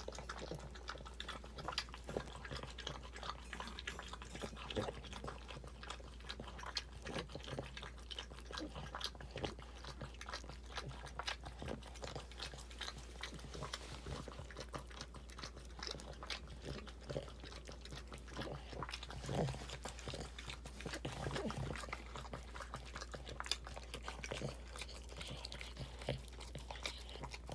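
Boston Terrier mother licking and nibbling at her newborn puppy: quick, irregular wet smacking and clicking sounds, with a steady low hum underneath.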